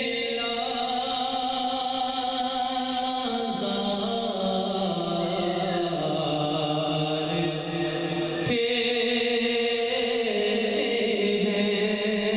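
A man singing a naat, an Urdu devotional poem, in long held melodic notes that step down and then back up. A single brief click about eight and a half seconds in.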